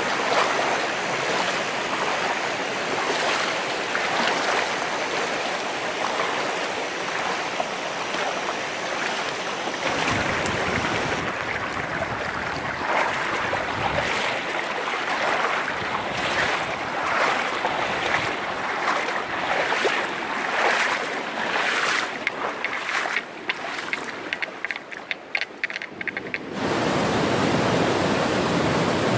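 Clear mountain stream in full flow, water rushing over rocks in a steady noisy rush. Near the end the sound turns choppy and uneven for a few seconds, then returns to an even, fuller rush.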